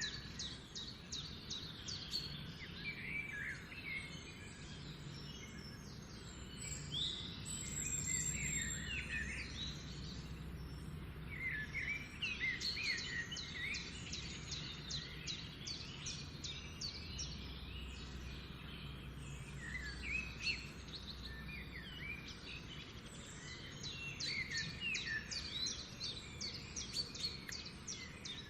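Several birds chirping and singing together in quick, overlapping trills and calls, with a steady low rumble underneath.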